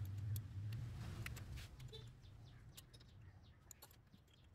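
Faint, scattered metal clicks and taps of a 12 mm spanner working the carburetor's mounting nuts onto the manifold, over a low rumble that fades out in the first two seconds. Faint bird chirps are in the background.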